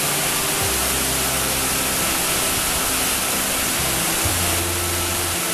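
Heavy rain pouring onto paved ground, a steady even hiss.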